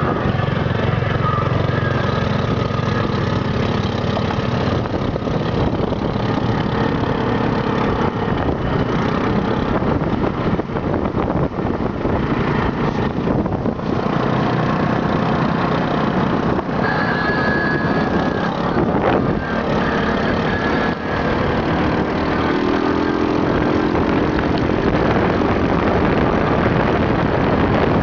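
Off-road dune buggy engines running as the buggies drive along a dirt track, a loud, steady engine noise.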